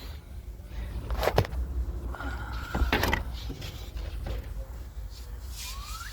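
Window glass and regulator being worked into position inside a car door: a few sharp knocks and clunks, with a short squeak just before the second knock.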